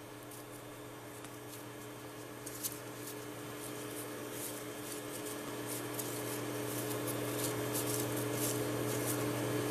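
A steady low hum of a few held tones, slowly growing louder, with faint scattered clicks and scratches over it.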